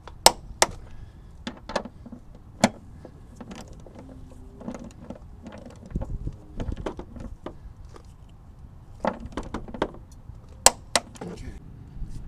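Scattered sharp metallic clicks and knocks of hand tools on a rear suspension bolt: a socket, extension and torque wrench being fitted and worked to tighten it, with a pair of loud clicks near the end.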